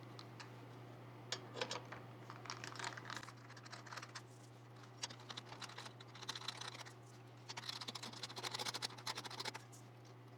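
Irregular bursts of small clicks and scratches from hands working on PC hardware, over a steady low hum.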